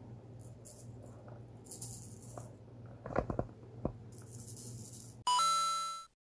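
Feather wand cat toy swishing and rattling in short bursts, with a few light clicks. Near the end a brief, loud musical sound effect of several pitched tones at once, which fades and then cuts off abruptly.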